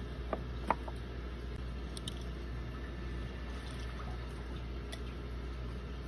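A few faint, light clicks and taps from a hand handling a small glass vial of dry cicada molts, over a steady low hum.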